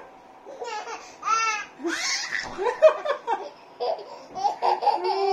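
Baby girl laughing: high-pitched squealing laughs, then a quick run of short giggles near the end.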